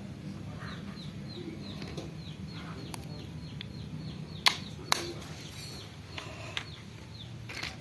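Chicks peeping, a rapid run of short falling chirps about three a second, over a steady low hum. Two sharp clicks about halfway through are the loudest sounds.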